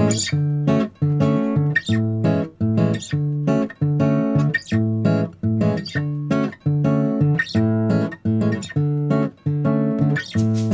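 Background music: strummed acoustic guitar chords in a steady rhythm.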